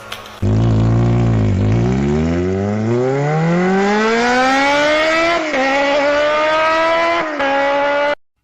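A car engine accelerating hard, its pitch climbing steadily for several seconds with two brief drops like gear changes, then cutting off suddenly.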